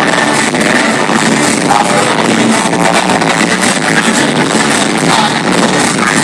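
Live synth-pop band music played loud through the concert sound system, heard from among the crowd: a dense, steady wall of sound with no break.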